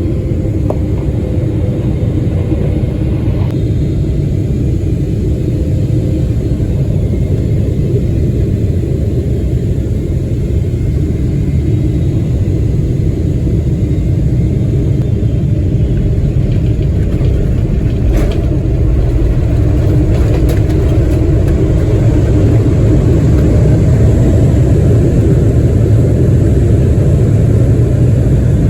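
Airliner cabin noise during the descent to landing: a steady low rumble of engines and airflow that grows a little louder over the last several seconds, with one brief click about two-thirds of the way through.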